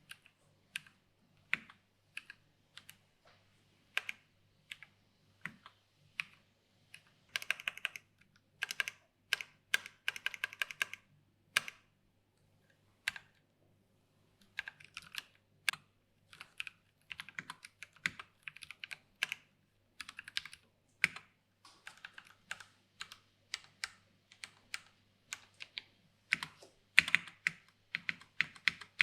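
Typing on a mechanical keyboard with Gateron brown tactile switches, PBT keycaps and an aluminum case: separate key clicks, slow single presses at first, then quick runs of typing with a short pause near the middle.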